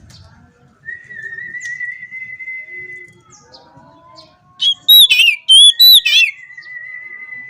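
Oriental magpie-robin (kacer) singing: a long held whistle, then a loud burst of quick warbled notes about five seconds in, followed by another long held whistle.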